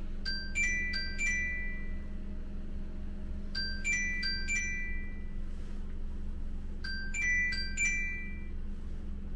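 Phone alarm ringing: a short chiming melody of bright mallet-like notes, played three times about three seconds apart, over a steady low hum.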